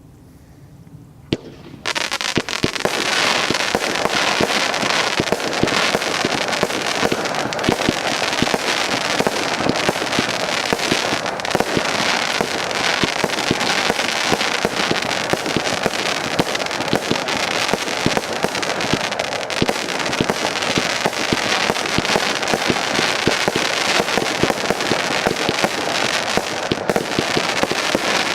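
Zeus Fireworks 'Monsoon Blast' firework going off. One pop comes about a second in, then from about two seconds there is a loud, dense, unbroken stream of rapid cracks and pops that keeps up steadily.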